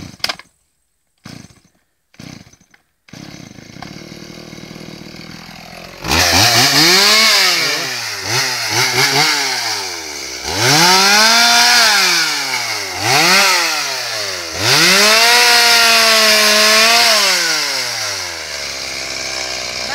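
Two-stroke petrol chainsaw idling, then revved up and down over and over from about six seconds in while sawing a tree branch, held at high speed for a couple of seconds at a time, and dropping back to idle near the end.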